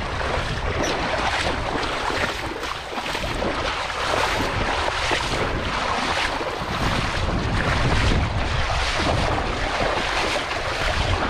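River water rushing, with wind buffeting the microphone.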